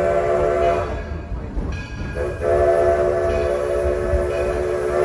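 Steam locomotive whistle blowing two long blasts: the first cuts off about a second in, and the second starts a little after two seconds and holds almost to the end. Under it, the low rumble of the train running.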